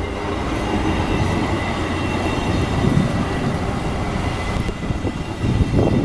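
VIA Rail passenger coaches rolling past at close range with a steady rumble of wheels on rail. A few low, heavy thumps come near the end.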